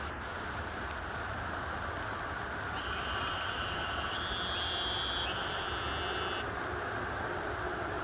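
Steady rain falling on still water, a constant even hiss. From about three seconds in, a high, thin tone of unknown source sounds for about three and a half seconds, stepping up in pitch twice before cutting off.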